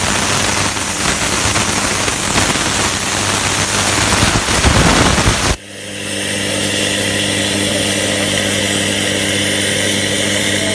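Plasma cutter cutting: a loud, harsh hiss and crackle over a hum, which cuts off suddenly about five and a half seconds in. A steady hum with a lighter hiss follows as the machine keeps running.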